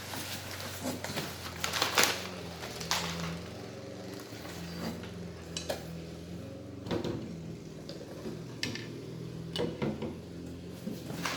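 Metal parts handled on a hard surface: scattered clinks and knocks, the loudest about two seconds in, over a steady low hum.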